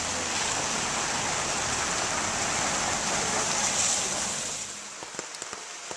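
Steady hiss of rain and water running over a wet street. It falls off about four and a half seconds in, leaving a few faint ticks.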